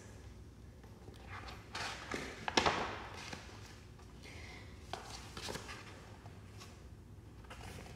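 Pages of a paperback picture book being turned and the book handled: papery rustling and soft knocks, loudest about two and a half seconds in, over a low steady hum.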